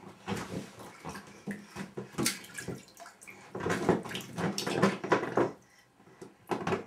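Bath water splashing in irregular bursts as a toddler paddles and slaps it with his hands in a small inflatable tub.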